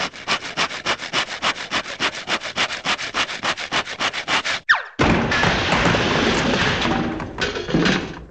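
Cartoon sound effect of a hand saw rasping through a wooden floor in quick, even strokes. About four and a half seconds in, a short falling whistle plays, then a loud crash of clattering debris that carries on for a few seconds, with a last clatter near the end.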